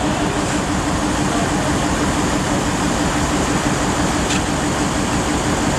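Coaches idling together: a steady engine rumble with a constant low hum, and a faint tick about four seconds in.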